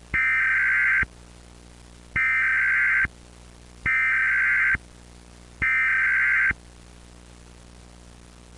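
Emergency Alert System data tones: four harsh, modem-like bursts of about a second each, roughly a second apart, the end-of-message signal of the alert. Between them a low steady hum and hiss.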